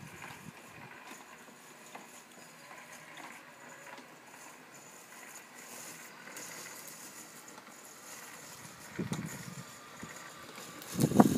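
DIY robot lawn mower running faintly as it drives across the grass. Two louder low rumbles come through about nine and eleven seconds in, the second the loudest.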